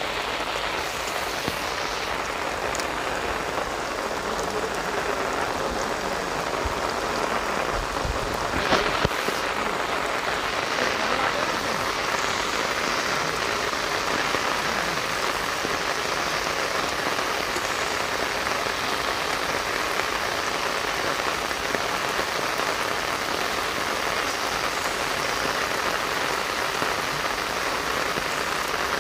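Heavy rain falling steadily on wet ground and standing water, a dense even hiss. A couple of sharp knocks stand out about nine seconds in.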